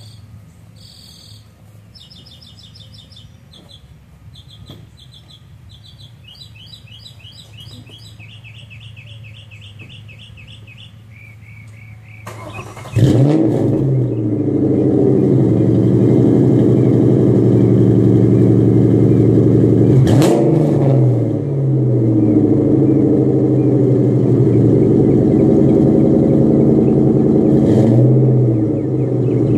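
Car engine breathing through headers and Flowmaster single-chamber 10 series mufflers with no catalytic converters. It starts about thirteen seconds in with a flare of revs, then idles loudly and is revved briefly twice. Before the start, birds sing in repeated chirping trills over a faint low hum.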